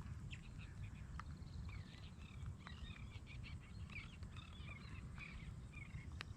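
Faint, rapid chattering bird calls through the middle few seconds over a steady low rumble of wind on the microphone, with a few sharp clicks.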